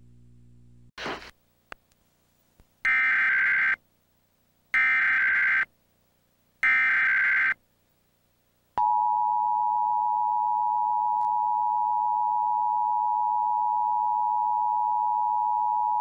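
Emergency Alert System header tones opening a required monthly test: three short, identical bursts of SAME data tones, about a second long and two seconds apart. These are followed by the EAS two-tone attention signal (853 and 960 Hz played together), held steadily for about eight seconds. A brief blip comes about a second in, before the bursts.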